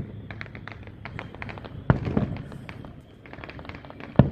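Fireworks show: aerial shells bursting, with two loud booms about two seconds apart and many smaller crackling pops between them.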